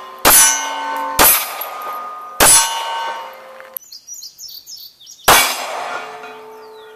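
Four handgun shots at steel plate targets, each followed by the ring of the struck steel. Three shots come about a second apart, then a fourth about five seconds in. Birds chirp faintly just before the last shot.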